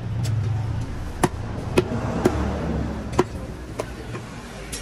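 A knife chopping on a cutting board: about seven sharp, unevenly spaced strikes, over a low steady rumble.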